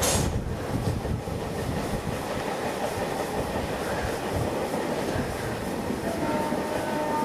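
A long 23-coach passenger train's coaches rolling past at speed, a steady rumble of wheels running on the rails.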